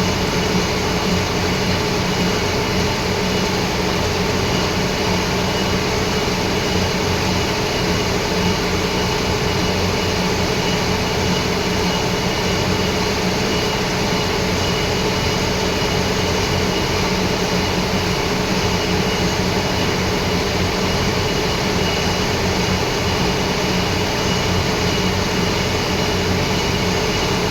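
Lathe running steadily: a constant machine drone with a steady low hum and a thin high whine.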